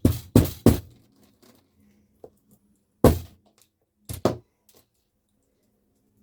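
Sharp knocks and clacks of small metal bag fittings on a hard work surface: three quick ones in the first second, one about three seconds in, and two close together just after four seconds.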